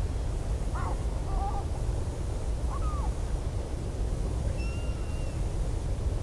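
A few short gull calls over a steady low wind rumble: calls about one second and three seconds in, then a higher, level whistled note about five seconds in.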